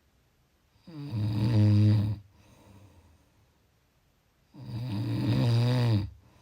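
A person snoring: two long, low-pitched snores about three and a half seconds apart, with quiet breathing between them.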